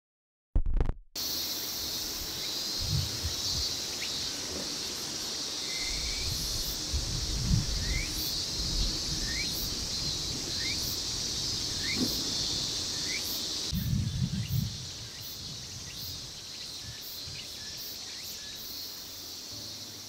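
Outdoor ambience dominated by a steady, high-pitched insect chorus, which drops noticeably about two-thirds of the way through. A series of short rising chirps sounds over it, along with a few low thumps and a brief loud noise just after the start.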